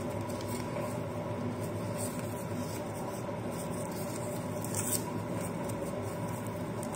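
Steady room noise, a low hum with hiss, with a few faint light clicks of handling.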